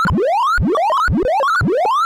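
Synthesised beeps from a sorting-algorithm visualiser, each pitch set by the value of the array element being accessed. They run together into rapid upward glides from a low pitch to a high one, starting over about twice a second.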